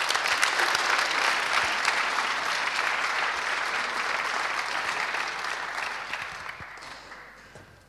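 Audience applauding, a dense patter of many hands clapping that fades away over the last two seconds.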